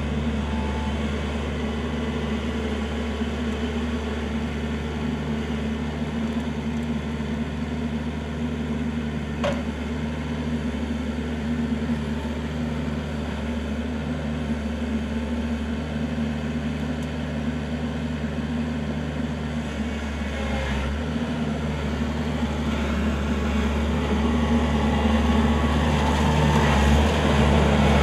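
Kubota L4400 tractor's diesel engine running steadily while working the backhoe, getting louder near the end.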